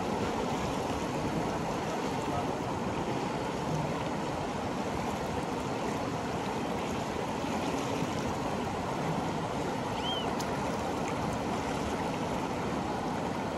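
Ganges River rushing past in a steady wash of fast-flowing, choppy water.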